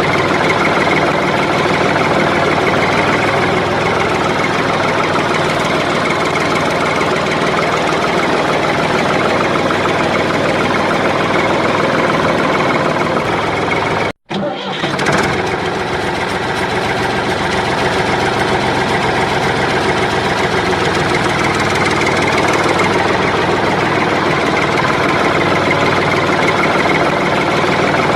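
Battery-powered bump-and-go toy car running with a steady, loud mechanical noise. It cuts out to silence for a moment about halfway through, then carries on.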